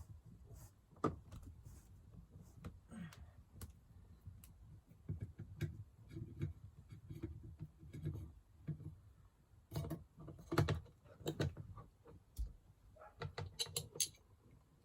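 Small clicks, taps and scrapes of screws and a screwdriver as an old 12 V caravan spotlight fitting is unscrewed and taken off its mount. They come irregularly, with busier clusters about ten seconds in and near the end.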